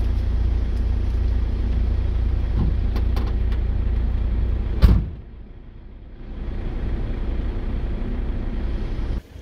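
A van's rear tailgate being lowered and shut, with a loud single thump about five seconds in, over a steady low rumble. A few light clicks come just before the slam, and the rumble drops away briefly after it before returning.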